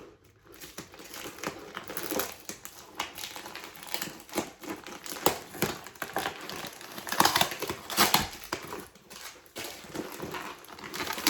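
Packaging rustling and crinkling unevenly as a parcel is opened by hand, loudest a little past the middle.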